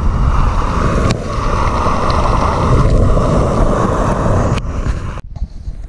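Portable gas camping stove burner running under a pot, a steady roaring hiss that breaks off abruptly near the end.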